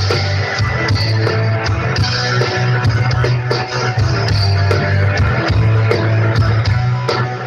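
Live rock band playing loud through a concert PA system, with a heavy, booming bass line and steady drum hits under guitar.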